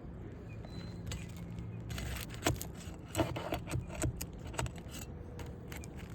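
Metal pry tool clinking and scraping against asphalt roof shingles as their nails are worked loose, with a run of sharp clicks about two to five seconds in.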